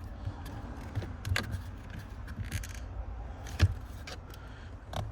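Plastic interior dash trim being handled and pulled at its clips: scattered small clicks and rattles, with a sharper knock about a second and a half in and a louder one around three and a half seconds.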